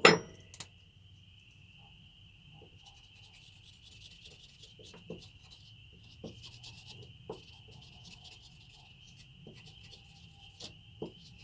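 Felt-tip marker rubbed back and forth over the flat of a steel knife blade, a light scratchy rubbing with small taps, coating the steel so hole positions can be marked. A single knock right at the start.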